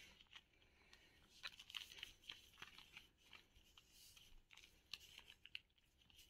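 Near silence, with faint scattered rustles and light taps of a baby handling a padded picture book.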